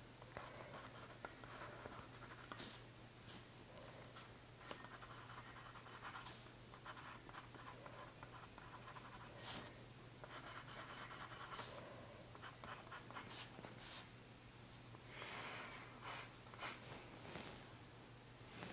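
Faint scratching of a glass dip pen's nib across paper, in stretches of short writing strokes with pauses between.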